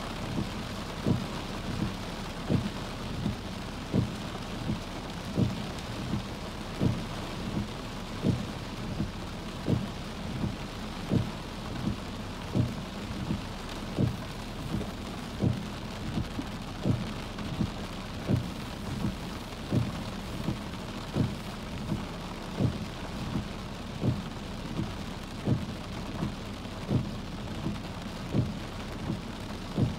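Steady rain falling, with a regular low thump about every second and a half.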